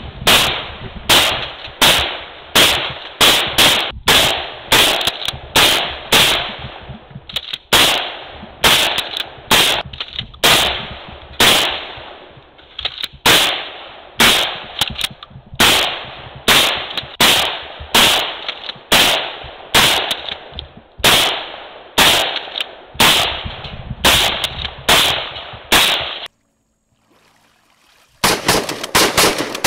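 DP-12 double-barrel 12-gauge pump shotgun firing rapidly, a steady string of shots about one and a half a second. Near the end, after a short silence, a faster string of shots.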